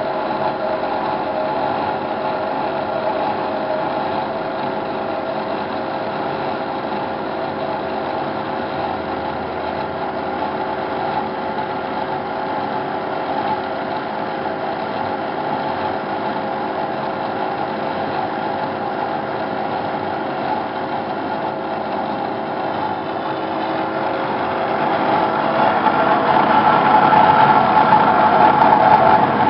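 Hyd-Mech H-12A horizontal band saw running and cutting through rectangular metal tubing: a steady machine hum with several held tones, growing louder in the last few seconds.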